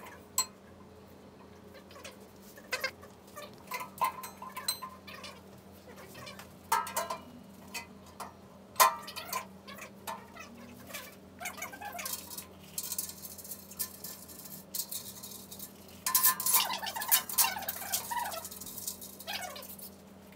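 Painted metal pool-table frame parts being handled and fitted together: scattered metal knocks and clinks, with a longer, louder stretch of clattering and scraping about three-quarters of the way through.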